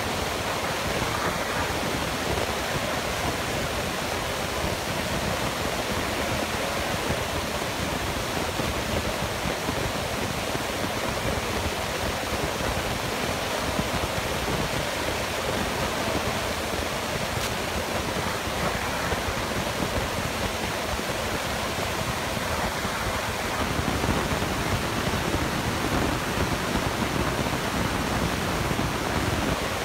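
Steady rushing noise of an excavator running close by, its diesel engine and hydraulics working a demolition shear through scrap steel. It gets a little louder in the last few seconds.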